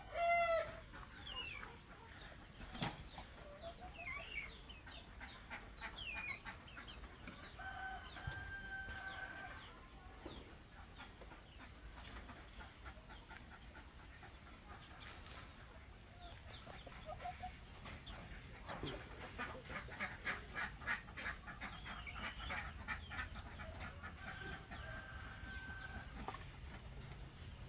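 Village chickens clucking and calling, with scattered short calls and a quick run of clucks about two-thirds of the way through. A rooster's crow ends right at the start, and two fainter held crows follow, one early on and one near the end.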